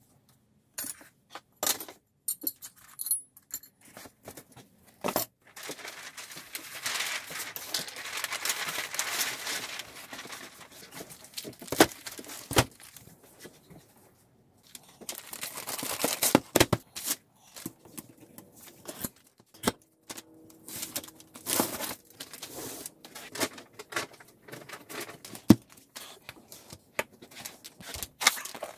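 Packaging being handled and unwrapped: plastic wrap crinkling and tearing, broken by many irregular sharp clicks and knocks as wooden boards and other items are set down on a table. The longest stretch of crinkling comes a few seconds in.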